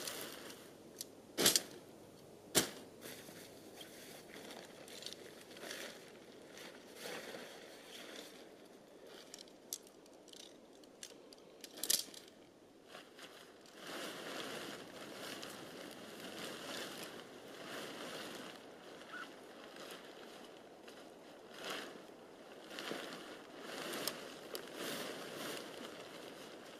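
Rustling and handling noises of a small tent being pitched, with a few sharp clicks near the start and about halfway through; the rustling grows busier in the second half.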